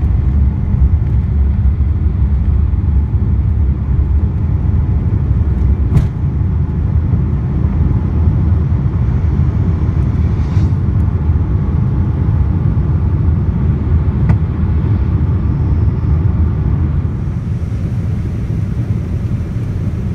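Steady low rumble inside the cabin of a Boeing 787-9 airliner under way, with a single sharp click about six seconds in. The rumble eases slightly near the end.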